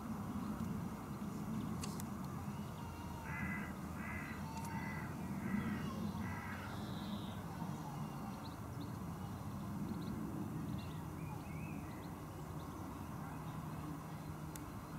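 An animal calling five times in quick succession, short harsh calls about two-thirds of a second apart, over a low steady hum.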